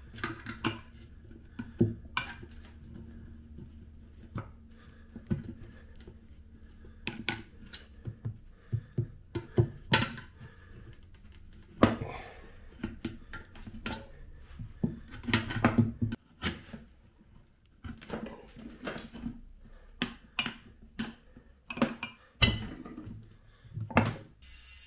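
Tyre spoons clanking and scraping against an ATV wheel rim and a manual tyre changer as the tyre bead is levered over the rim: irregular metal clinks and knocks, one sharper knock about halfway through.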